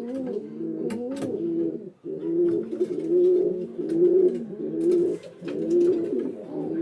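Pigeons cooing, several low, wavering coos overlapping, with scattered light clicks. About two seconds in the sound breaks off sharply, then the coos resume in an even run of roughly one a second.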